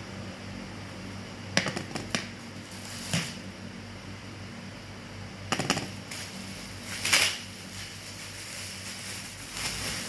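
Several short clicks and rustles of objects being handled, the loudest about seven seconds in, over a steady low hum.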